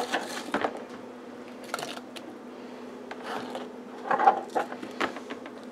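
Diced apple pieces pushed across a cutting board by hand and dropped into a mixing bowl of shredded chicken: scattered light taps, knocks and scrapes in short clusters, over a faint steady hum.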